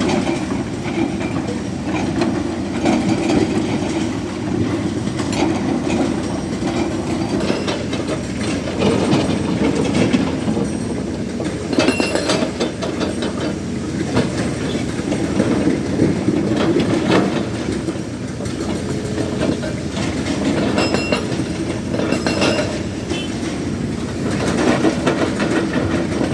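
Hydraulic rock breaker on a Tata Hitachi Zaxis 220 LC excavator hammering rock: a fast, unbroken rattle of blows over the running diesel engine, with a few sharper clinks along the way.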